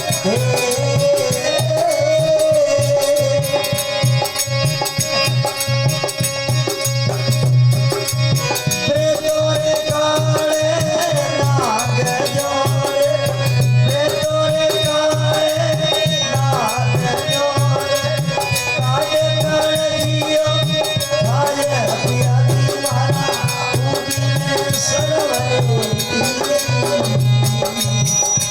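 Instrumental interlude of a Rajasthani folk bhajan: a held, lightly ornamented melody line over fast, steady drum and rattle percussion.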